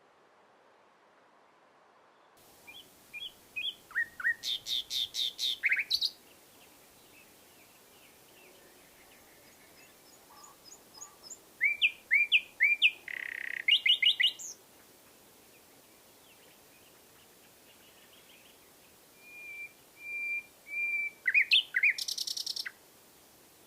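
Common nightingale singing in three phrases of rapid repeated notes and sharp chirps, one with a held whistle, separated by pauses of a few seconds; the song begins about two seconds in.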